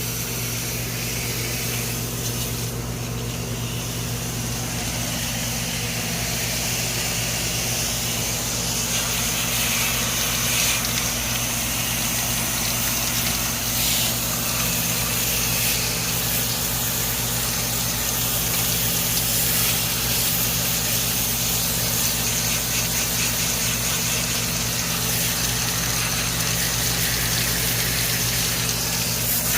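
Goodman air-conditioner outdoor unit running, a steady hum from the compressor under an even rush of fan and air noise.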